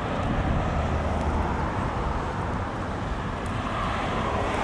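Steady road traffic noise from cars driving on a city street.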